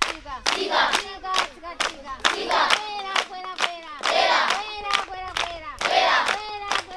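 A group of voices singing and chanting with hand claps, with loud group shouts coming back about every one and a half to two seconds.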